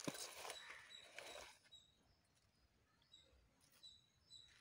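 Near silence: a soft rustle of leaves and handling with a click at the start, fading out after about a second and a half, then only faint short high chirps now and then.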